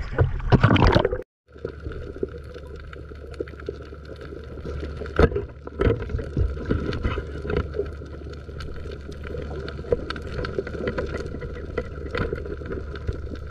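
Water splashing as a diver ducks under from the surface; the sound then cuts out briefly and turns to the muffled underwater sound of the reef: a steady low hum with scattered clicks and crackles, a few sharper clicks around the middle and near the end.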